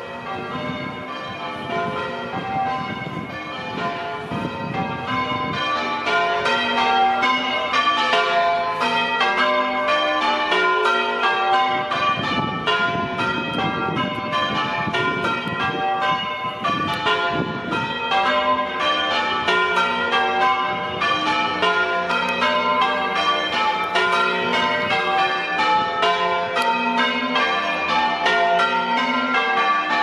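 Church tower bells ringing in a fast, even, continuous sequence of strikes, growing louder over the first several seconds.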